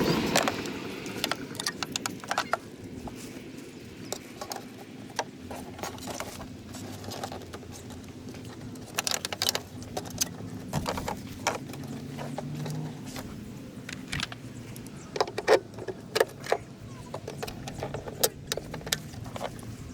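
Scattered light clicks, taps and small rattles of parts and hand tools being handled, with a faint steady hum underneath.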